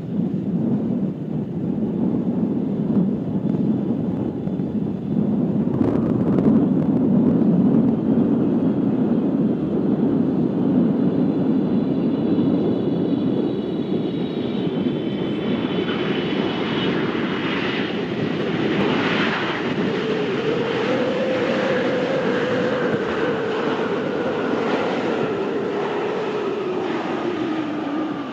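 Boeing 777 freighter's twin turbofan engines on landing approach: a steady rumble, then a high whine that slowly falls in pitch from a little before halfway as the jet passes, with the engine note sinking near the end.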